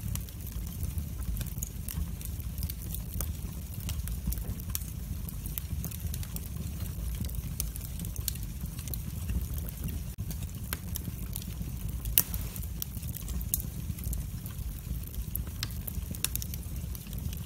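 Wood fire crackling, with scattered sharp pops over a steady low rumble; one louder pop about twelve seconds in.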